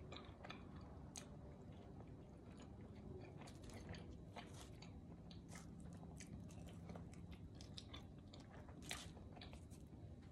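Close-up chewing and biting of pizza, with soft crunches of crust and wet mouth clicks scattered throughout.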